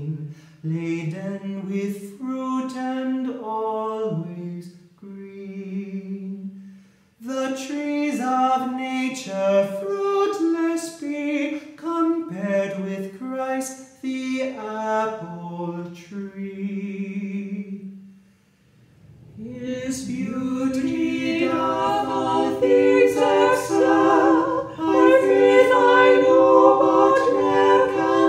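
Unaccompanied singing. A single voice sings a slow melody in phrases with short breaths between them. About two-thirds of the way through, several voices come in together in harmony, louder, like a small choir.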